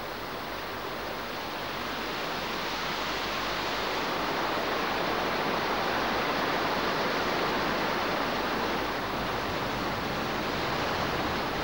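Steady rush of water flowing and splashing through the open filter channels of a drinking-water treatment plant as the filters are washed out. It swells a little towards the middle.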